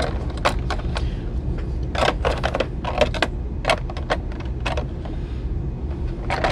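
Hard plastic clicking and rattling: a plastic action figure and its toy chainsaw accessory being handled and pressed into a clear plastic blister tray. The clicks come irregularly, bunched in the first four or five seconds, over a steady low hum.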